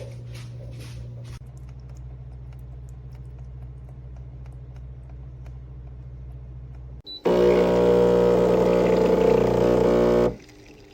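Espresso machine's pump buzzing loudly for about three seconds, starting and stopping abruptly, over a steady low hum.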